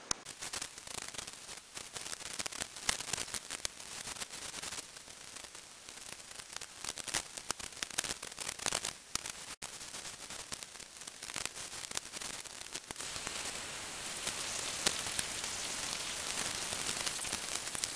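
Knife cutting a sheet of Depron foam, heard as a dense crackling hiss full of small clicks. There is a brief dropout about ten seconds in, and the hiss grows a little denser in the second half.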